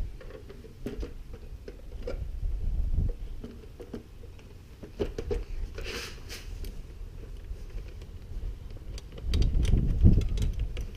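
Scattered light clicks and knocks of hand tools and plastic bodywork as a motorcycle seat is refitted, over a low rumbling on the microphone that swells twice and is loudest near the end.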